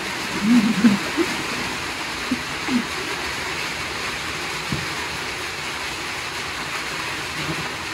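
Steady rain hissing on and around a sheet-metal shelter, with a brief voice about half a second in.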